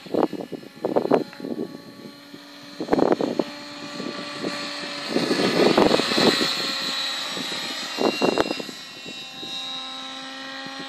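Radio-controlled 700-class model helicopter in flight: a steady motor and rotor whine that drifts slightly in pitch, with about five louder rushing swells.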